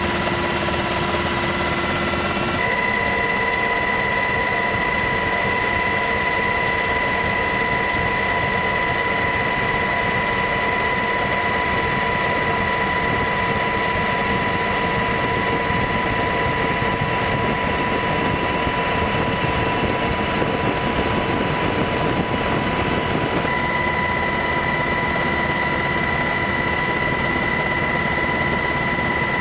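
Steady helicopter noise heard from on board: a dense drone from the engine and rotor with a constant high turbine whine, its tones shifting slightly about two and a half seconds in and again near the end.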